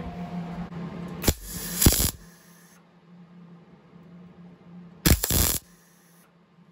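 MIG welder laying two short tack welds on a sheet-metal patch panel: a brief crackling burst of the arc about a second and a half in, and another about five seconds in. A steady low hum runs underneath.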